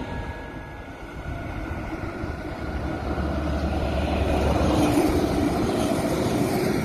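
Tram running along its street track, a low rumble and wheel hiss that grows louder as it approaches.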